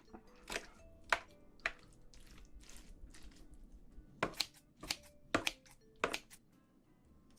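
About a dozen short, sharp clicks and scrapes at an irregular pace, the loudest in a cluster between about four and six seconds in: utensils working rice and spicy braised seafood in the dish while eating. Faint background music underneath.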